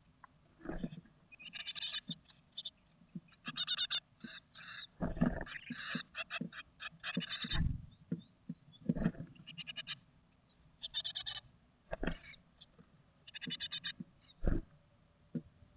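Great tit nestlings in a wooden nest box calling in quick trains of rapid repeated notes, with several dull thumps and scrabbling as the crowded, fledging-age chicks jostle and flap against the box.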